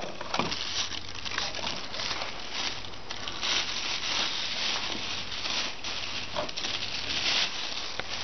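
Plastic bag crinkling and rustling in uneven bursts as an air pump is unwrapped from it by hand.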